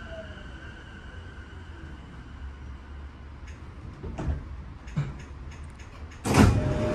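E233-7000 series electric train coming to a stop: the inverter's falling whine and steady tones fade out about three seconds in, a few clicks and knocks follow as the brakes hold, and near the end the passenger doors slide open with a sudden loud rush.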